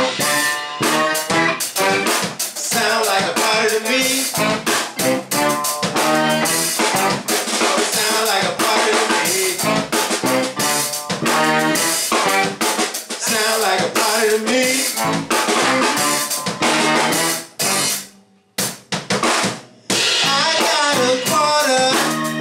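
Funk band playing live in a small room: drum kit, tenor saxophone and trombone, keyboards and electric guitar. Near the end the band stops for about a second and a half, with a couple of hits in the gap, then comes back in.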